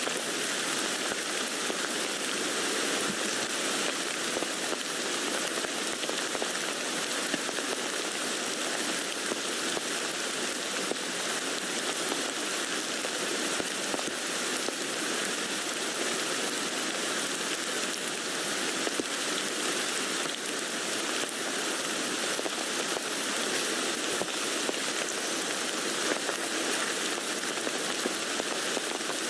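Steady rain pattering on a tent's fabric, a dense, even patter of many drops.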